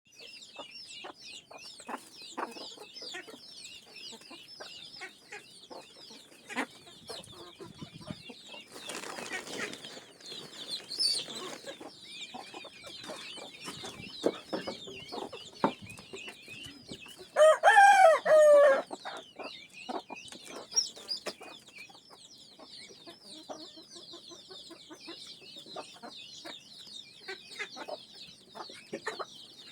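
Free-range desi chickens clucking on and off over a constant high chirping, with one loud rooster crow about two-thirds of the way through.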